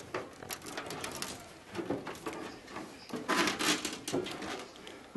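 Footsteps climbing metal boarding steps into an aircraft fuselage: a run of clanks and scuffs on the treads, loudest a little past halfway.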